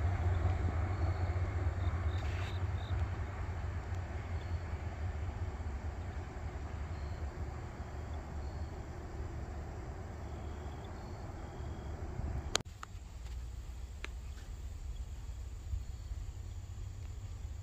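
Low rumble of a passing freight train, slowly fading as it moves away, with faint insect chirps over it. One sharp click about twelve and a half seconds in, after which only the quieter rumble and chirps remain.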